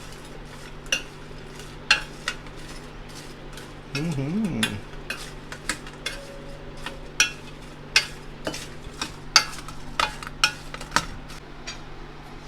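A spoon stirring fried idli pieces with spice powder in a vessel, clinking sharply against its side at irregular moments, roughly once a second.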